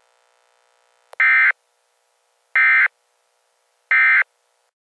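Emergency Alert System end-of-message data code: three short, loud bursts of screechy data tones, about 1.4 s apart, marking the end of the warning.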